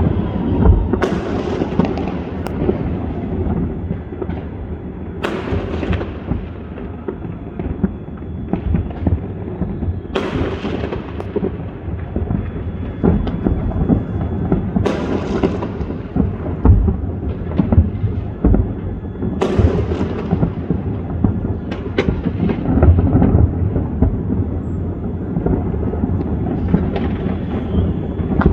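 New Year fireworks going off: a continuous low rumble of many bursts, with about six louder sharp bangs spaced a few seconds apart and smaller crackles between them.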